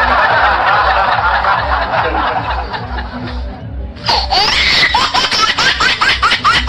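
Laughing sound effects played over a steady music beat. For about four seconds a dense mass of laughter sounds, then it switches to a fast, high-pitched laugh made of quick rising yelps.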